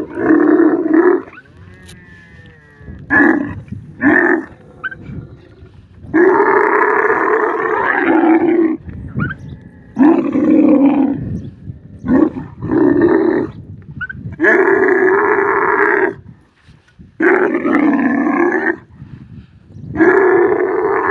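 Dromedary camels bellowing during mating, a couched camel and the male mounted on it both calling with open mouths. About nine loud, pitched calls come one after another with short pauses between them, the longest lasting about two and a half seconds.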